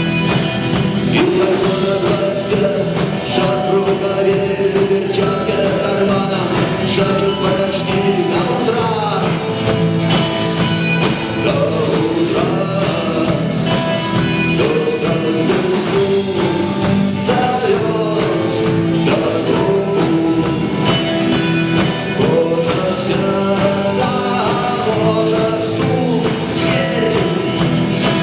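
Rock band playing live: guitars and drums in a steady, loud passage, with some singing.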